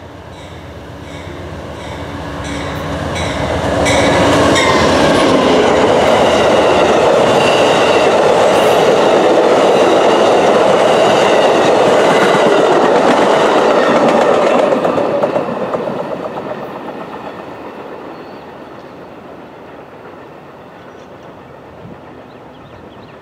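Amtrak passenger train approaching and passing at speed. The locomotive's engine builds up with clicks from the wheels, then drops in pitch as it goes by about four seconds in. A steady loud rush of coach wheels on rail follows, fading away after the last car passes about fifteen seconds in.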